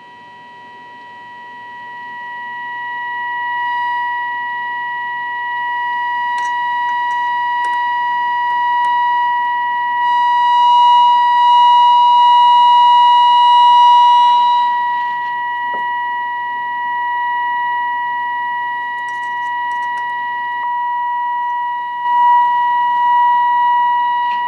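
The 1948 Westinghouse H-204A radio's speaker sounds a steady 1000 Hz test tone, the audio on the 455 kHz alignment signal. It swells over the first few seconds and is loudest around the middle as A1 and A2 are peaked for the best signal during the AM IF alignment.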